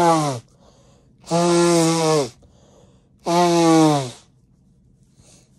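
A person blowing their nose hard three times, about two seconds apart, the first already underway. Each blow is a rush of air with a pitched tone that drops in pitch as it ends.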